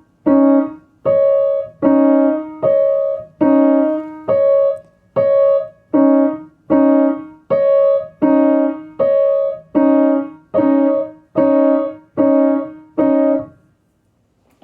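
Piano played by a young beginner: a simple two-note tune in slow, evenly spaced notes, switching between a higher and a lower note like a cuckoo call. The notes stop about a second before the end.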